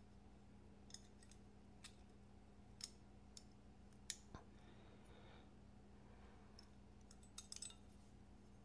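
Faint, scattered light clicks of small metal folding-knife parts being handled and fitted during reassembly, with a quick cluster of clicks near the end.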